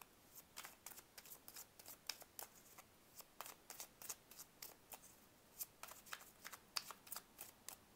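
A deck of tarot cards being hand-shuffled: a faint, irregular run of soft card clicks and flicks.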